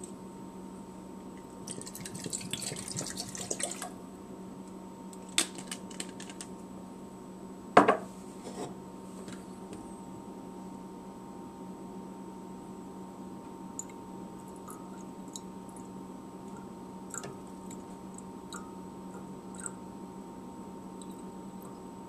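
Liquid trickling into a glass volumetric flask for about two seconds, followed by a few sharp knocks, the loudest near the middle, then faint scattered drips and ticks over a steady low room hum.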